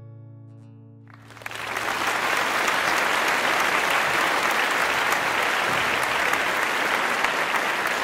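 The final strummed chord of an acoustic guitar rings out and fades, then applause breaks in a little over a second in and carries on steadily.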